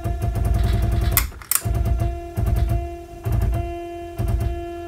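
Stepper motor driving a drill press knee lift, running with a steady whine and a low juddering thud a little more than once a second as it strains under the load. It lacks the torque to lift well at about 32 V, a sign it needs a higher-voltage supply or a stronger motor.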